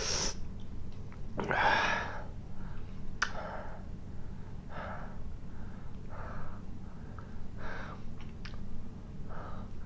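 A man breathing hard through his mouth, short gasping breaths about once a second with a longer one about two seconds in, and a few sharp clicks. His mouth is burning from Carolina Reaper pepper.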